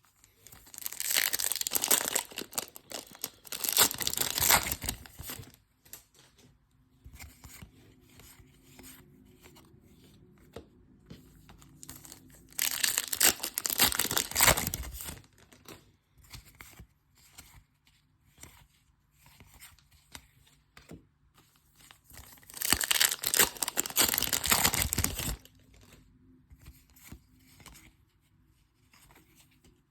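Foil trading card pack wrappers being torn open and crinkled, in three bouts: near the start, in the middle and about two-thirds through, with faint clicks of cards being handled between them.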